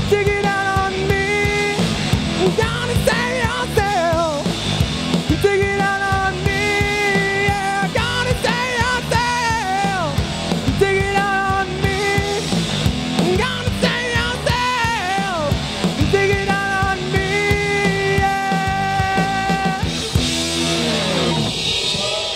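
Live rock band playing through a PA: a man singing over electric guitar, bass guitar and drums.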